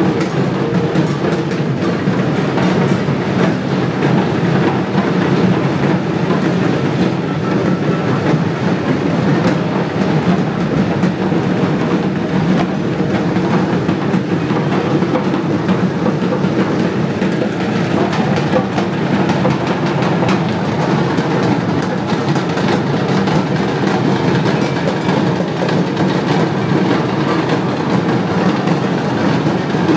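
Loud, unbroken rapid drumming of a procession drum band, a dense rattling beat with no pause.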